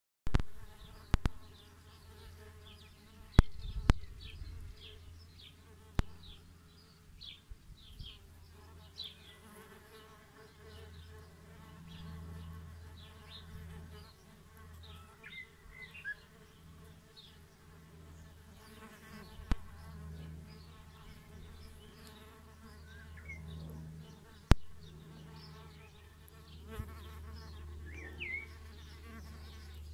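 Wild bees buzzing as they fly close around the nest holes of an insect hotel, a low hum that swells and fades as they pass. Several sharp clicks, the loudest sounds, stand out, most of them in the first few seconds.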